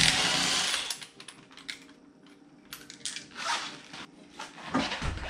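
Cordless impact wrench hammering a wheel lug nut loose in a short burst of about a second. Lighter metallic clicks and knocks follow as the loose lug nuts and wheel are handled, and a dull thump comes near the end.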